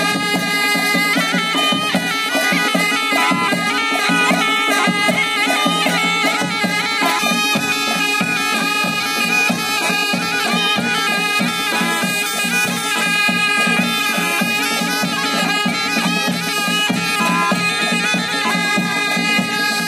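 Nepali panche baja band playing: a reedy, sustained wind melody from shehnai-type horns over steady beating on a barrel drum and a large flat kettle drum.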